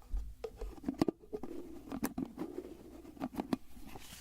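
Fingers tapping and handling a bottle: a run of light, irregular taps and clicks.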